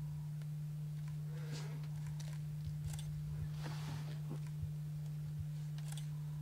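A steady low hum that does not change, with a few faint scattered clicks and a brief soft rustle a little past the middle.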